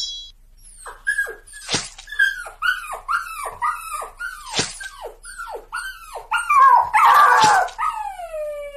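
A dog barking repeatedly, about three short barks a second, each falling in pitch. It ends in a louder burst and then a long falling whine.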